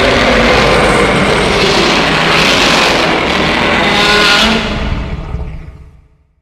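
A loud, harsh, noisy sound effect with no clear pitch, fading away over the last two seconds.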